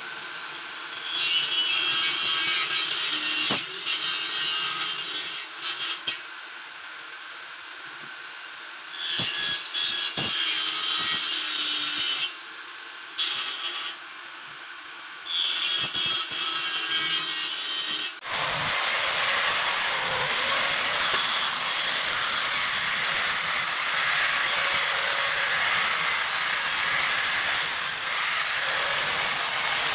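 Table saw cutting small pieces of wood in several passes, each cut a few seconds long. About 18 s in, a handheld disc sander starts up and runs steadily with a high hiss.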